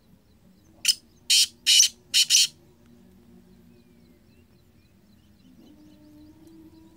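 Black francolin calling: a loud, harsh, grating call of about five notes, starting about a second in and lasting about a second and a half, with the last two notes run close together.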